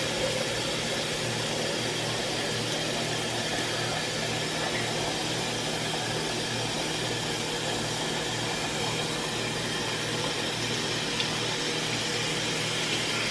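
Kitchen faucet running hot water into a plastic pitcher, a steady rush of water as the pitcher fills.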